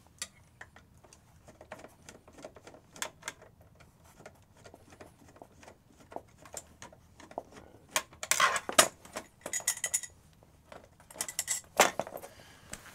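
Screwdriver unscrewing the bolts from the underside of a metal wheelchair armrest: a run of small metallic clicks and ticks, with louder clinking rattles about eight seconds in and again near the end.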